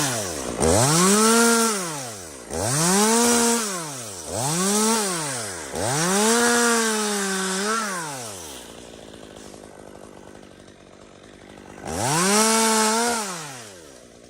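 Chainsaw revved in repeated short bursts, its engine note rising and falling with each one, about five in quick succession. It then drops to idle for a few seconds before one more burst near the end.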